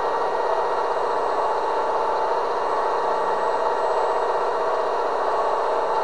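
Turnigy G-25 870KV brushless electric motor spinning a Master Airscrew 10x7 propeller at a steady low throttle of about 10%, a constant whir with a steady hum running under it.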